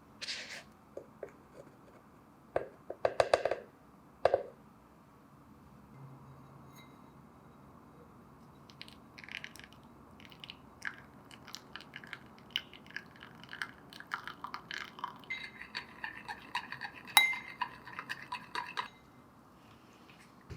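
Crockery and cutlery clinking: a few sharp knocks early on, then a long run of quick, light clinks that ring, busiest just before they stop about a second before the end.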